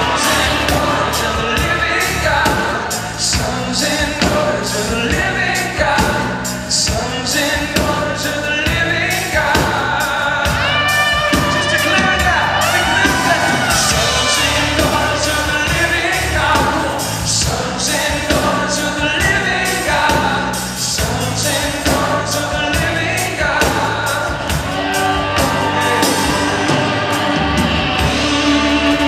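A live worship band plays with singing: drum kit, electric guitar and keyboard under a lead vocal, continuous and loud.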